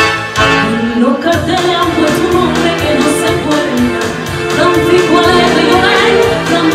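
Spanish copla song with brass and band accompaniment on a steady beat; a sung melody comes in about a second in.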